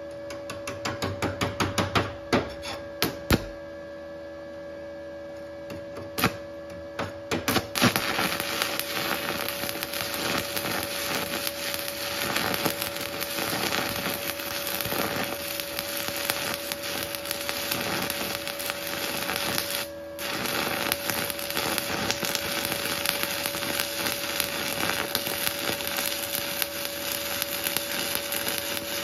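Stick (MMA) welding with an 8018 electrode on an inverter welder: a string of short sputters and clicks as the rod is struck on the plate, then a steady crackle of the running arc from about eight seconds in, which cuts out briefly once, about twenty seconds in. A steady electrical hum runs underneath.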